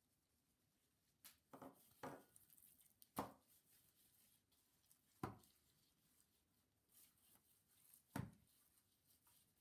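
Faint handling of raw turkey legs in a roasting pan: gloved hands rubbing and turning the meat, with several short slaps and thuds, a quick cluster early on, then single ones spread through.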